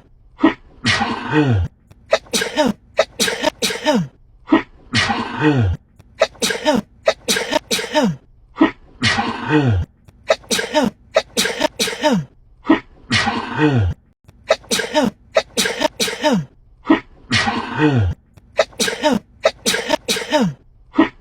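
A woman sneezing over and over in an uncontrollable sneeze attack. Each fit is a few quick, sharp sneezes and then a longer one whose pitch falls. The same fit repeats about every four seconds, as an edited loop.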